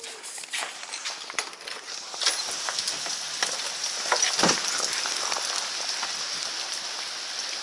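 Heavy tropical-storm rain falling, a steady hiss full of individual drops ticking on a hard surface; it grows louder about two seconds in and then holds.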